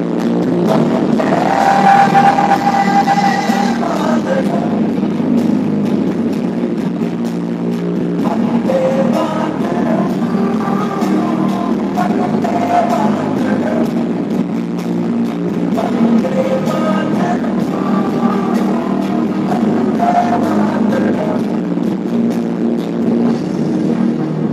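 A patriotic song playing, with a voice singing a melody over a steady beat.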